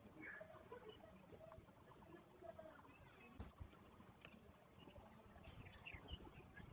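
Near silence: a faint steady high-pitched whine, with one short knock about three and a half seconds in and a few faint ticks.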